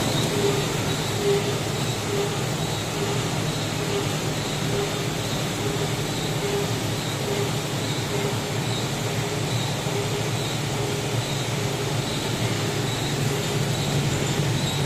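Roll-to-roll paper lamination machine running: a steady mechanical hum with a faint regular pulse.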